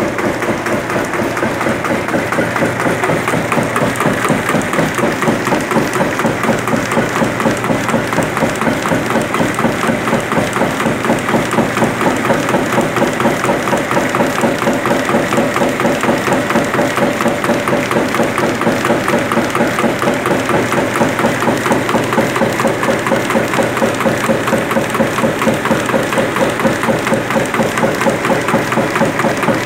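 SREE-60 sawdust briquetting press, a belt-driven flywheel machine, running steadily while pressing sawdust into briquettes, with a rapid, even pulsing rhythm.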